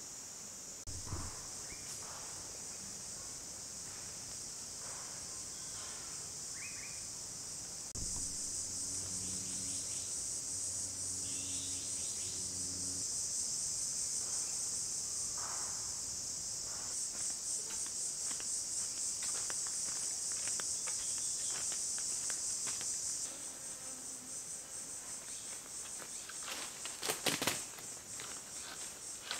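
A steady, high-pitched chorus of insects, louder through the middle stretch. A few sharp cracks come near the end.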